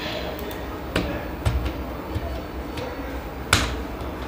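A few sharp computer keyboard key clicks as letters and then Enter are typed, the loudest about three and a half seconds in, over a low steady hum.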